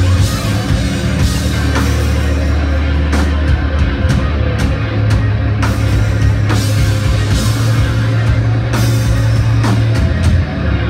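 Live rock band playing a loud instrumental passage: drums with repeated cymbal crashes over sustained low bass notes and guitar.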